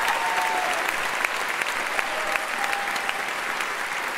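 Audience applauding, a dense patter of clapping that eases off slightly toward the end.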